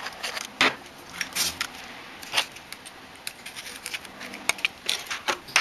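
Sharp irregular clicks and short scrapes of a screwdriver and fingers working at the plastic casing of a barbecue igniter as it is taken apart, with a run of louder clicks near the end.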